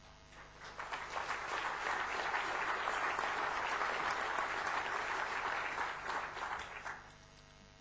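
Audience applauding, building up over the first second or so, holding steady, then dying away about seven seconds in.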